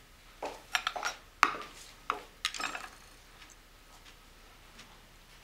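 Cutlery clinking and scraping against a plate as someone eats quickly: a run of clinks over the first three seconds, the loudest about a second and a half in.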